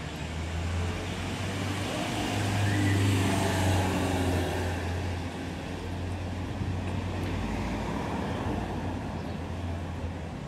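Road traffic: a motor vehicle drives past, its engine and tyre noise swelling to a peak about three seconds in and then fading. A steady low engine rumble continues underneath.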